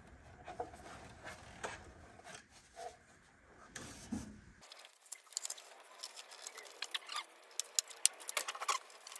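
Quiet handling noises: scattered light clicks and small rattles, which turn sharper and more frequent in the second half.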